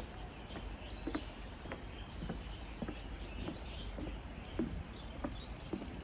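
Footsteps of a person walking on pavement, a steady pace of a little under two steps a second, over a low steady city rumble.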